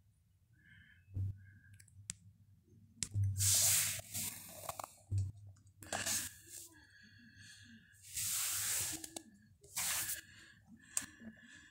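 Breathing close to the microphone: several hissy breaths a couple of seconds apart, with a faint steady high whine in between.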